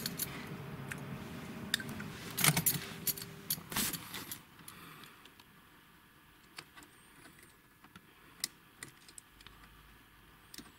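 Rattling and clicking of a small plastic connector and its wires being handled and plugged onto pins, loudest in bursts over the first four seconds, then only a few faint clicks.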